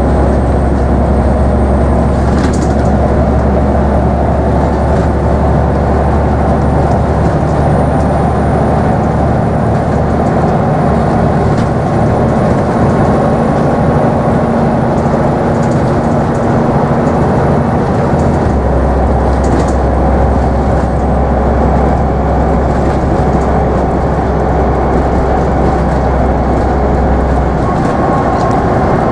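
Scania N94UB Omnidekka double-decker bus heard from inside the passenger cabin while under way: a steady low engine drone with road and tyre noise. The drone's low note shifts about a third of the way in and again near the end, and a couple of brief clicks from the bodywork are heard.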